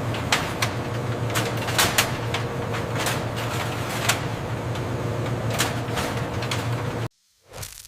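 Processing machinery running with a steady hum, with sharp clicks and knocks at irregular moments over it; the sound cuts off abruptly near the end.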